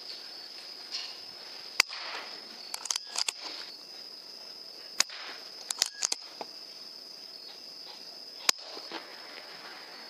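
Crickets chirping in a steady high trill, broken by three sharp cracks and several softer clicks.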